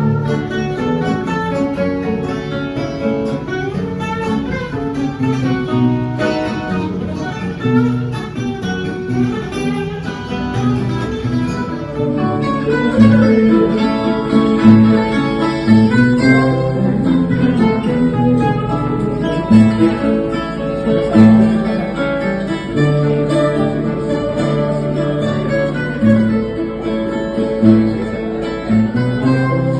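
Instrumental fado music: plucked acoustic guitars playing a running melody over a steady bass line.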